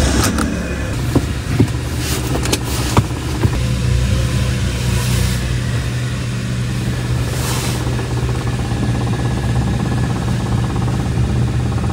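Suzuki car engine running at a steady low hum just after being started, with a few sharp clicks in the first three seconds.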